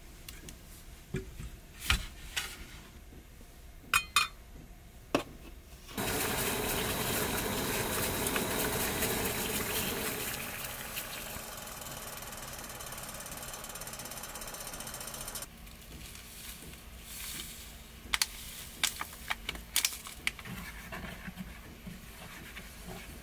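A few sharp metal clicks, then a portable gas stove's burner hissing steadily under a steaming pot for about nine seconds, heavier at first, until it is shut off suddenly. Near the end, light clinks of chopsticks against a steel cup.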